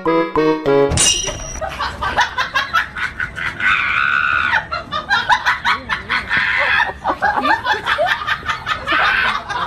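People laughing, starting about a second in when a short stretch of music breaks off, and going on in quick repeated bursts.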